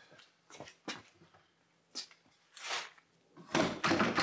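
A few light clicks and knocks as a wooden drilling jig and its clamps are handled on a hardwood workbench top, with a soft rustle partway through and a quicker run of louder knocks near the end.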